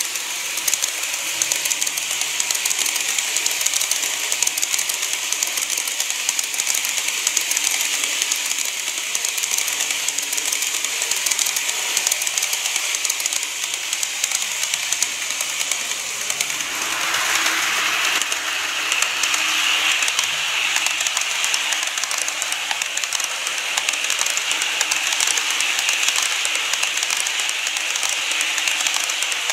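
TOMIX 103 series model electric train running along the track, its wheels clicking and rattling over the rails in a dense, steady patter with a high hiss. A little over halfway through, the sound turns brighter and hissier.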